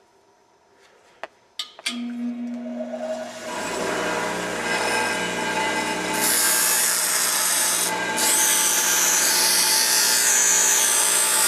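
An electric grinder starts about two seconds in and runs, then grinds a steel hacksaw blade down, with loud, high-pitched grinding from about six seconds in that breaks off briefly near eight seconds.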